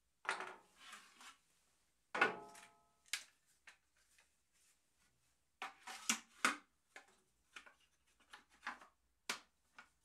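Small wooden puzzle-box pieces knocking, clacking and sliding as the box is handled and taken apart. There is a run of separate knocks and short scrapes, the loudest about two seconds in, with a brief ringing, and a cluster around six seconds in.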